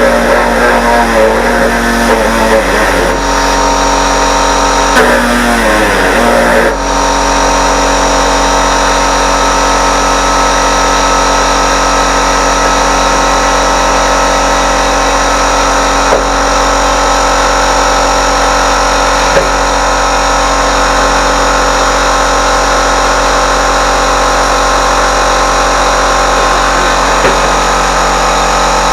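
A machine running steadily, a loud constant drone made of several fixed tones. For roughly the first six or seven seconds a wavering pitched sound rides over it, then stops abruptly.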